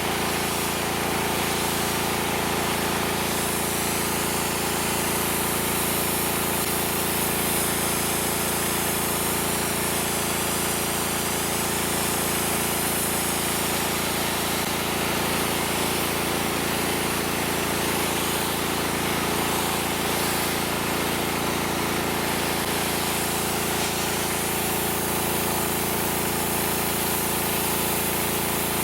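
Champion Pro gas pressure washer running steadily, its small engine humming under the hiss of the high-pressure water jet.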